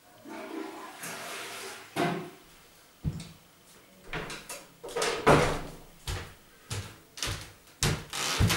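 Rustling for about two seconds, then a string of knocks and bumps, roughly one or two a second, from things being handled, like a door or cupboard being opened and shut.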